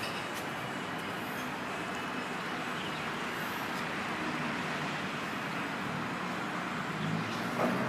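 Steady background noise, an even hiss with a low rumble, and a low hum that grows a little louder near the end.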